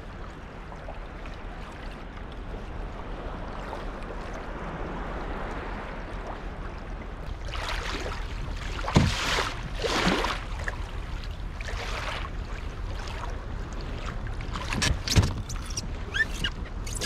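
Water lapping and splashing against the hull of a Hobie Pro Angler fishing kayak as it moves. From about halfway through come several louder splashes and knocks.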